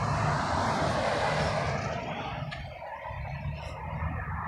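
A passing vehicle: a rushing noise that swells and fades over the first two seconds or so, over a steady low rumble.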